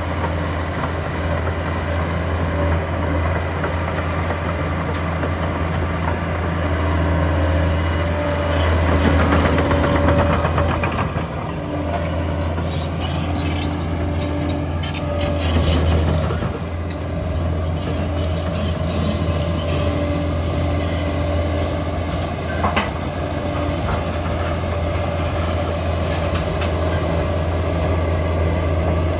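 Liebherr PR 746 crawler dozer working: its diesel engine drones steadily under load while the steel tracks clank and squeal. The engine swells louder twice, about a third and a half of the way through.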